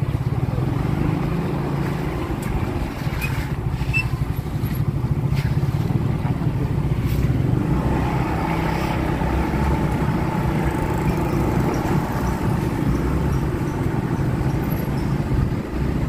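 A motor scooter running steadily while being ridden, heard from the rider's seat: a constant engine rumble mixed with rushing air.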